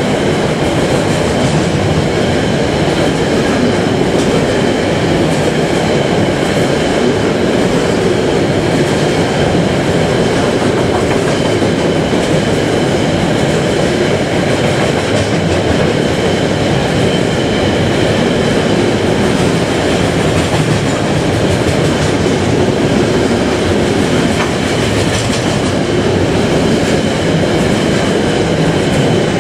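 Freight train's container wagons passing close at speed: a steady rumble with the clickety-clack of wheels over the rail joints, and a thin high whine above it.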